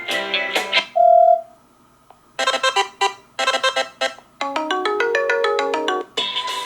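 Ringtone previews from a Fairphone 3 phone's speaker: about six different short melodies and tones play one after another, each breaking off after about a second, with a brief gap about two seconds in.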